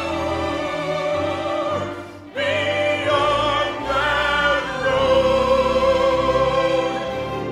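Recorded musical-theatre ballad: orchestra with a singer holding long notes with vibrato. The music dips briefly about two seconds in, then comes back in fully.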